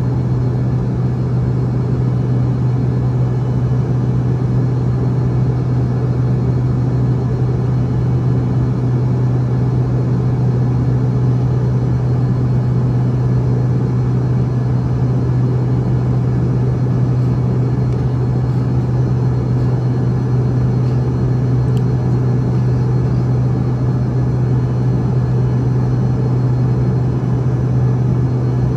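Airliner cabin noise heard from inside the cabin: the steady, loud drone of the jet engines and airflow, with a strong low hum that does not change.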